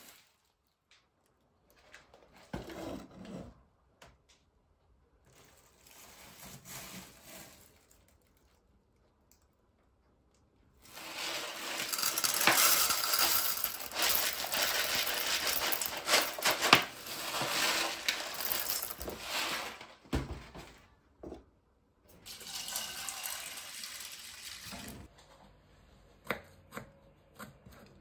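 Dried hyacinth beans poured from a plastic bag into a metal saucepan: a dense rattle of many small hard beans hitting the pan, starting about a third of the way in and lasting around nine seconds, with a shorter second pour after it. Near the end, a knife taps steadily on a plastic chopping board as garlic is sliced.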